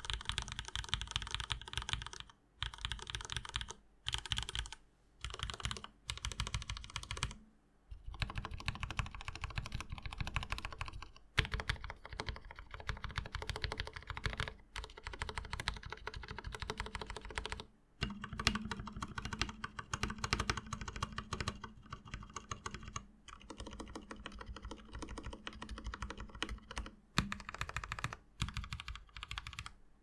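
Typing on a Leopold FC750R tenkeyless mechanical keyboard with Superlube-lubed Cherry MX Red linear switches and PBT keycaps: fast runs of keystrokes broken by short pauses every few seconds.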